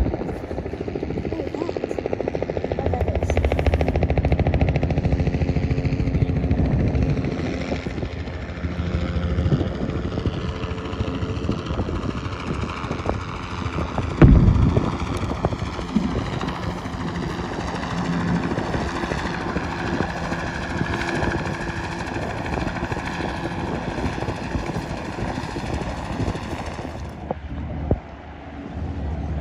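A distant cannon shot, one sharp boom about halfway through, over a steady background of wind and engine drone.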